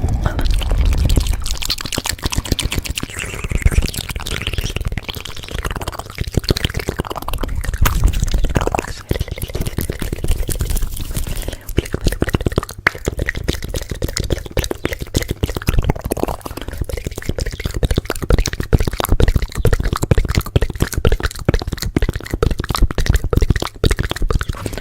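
Close-miked ASMR trigger sounds: a dense, continuous stream of rapid clicking and crackling with wet, drippy sounds mixed in.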